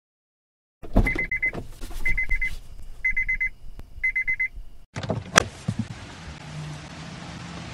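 Car warning chime beeping four times, about once a second, each a short buzzy beep with clicks and knocks around it. About five seconds in it cuts to a sharp thump followed by a steady noisy hum.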